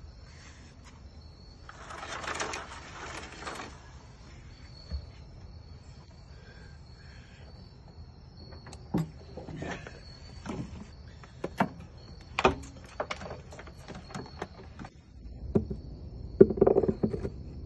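Work-handling noise: a brief rustle about two seconds in, then a string of light knocks and clunks from about nine seconds on. The loudest come near the end, as a bronze transducer housing is fitted up into the hole in the hull. Under it all runs a faint, steady, high-pitched insect trill.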